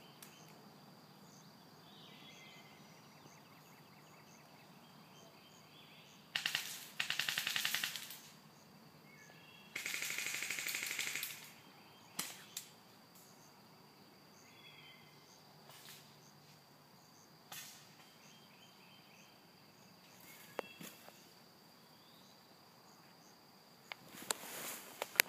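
Airsoft guns firing bursts of rapid automatic fire: three bursts, the last about a second and a half long, then a few single shots. Birds chirp faintly in between.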